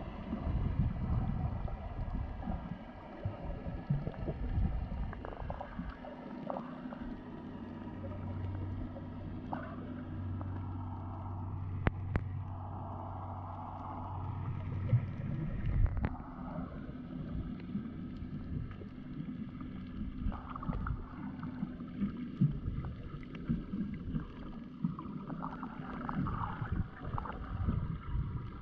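Water sloshing and gurgling around a snorkeler's camera as it moves through the surface and underwater, with a low steady hum for about nine seconds in the middle and a few sharp clicks.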